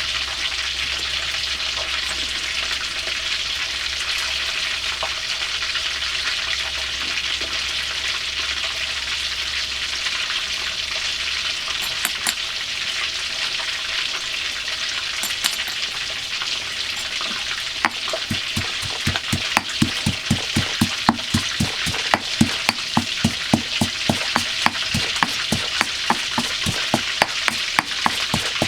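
Food sizzling as it fries in hot oil in a pan, a steady hiss. About two-thirds of the way in, a quick run of knocks starts over it, roughly three a second.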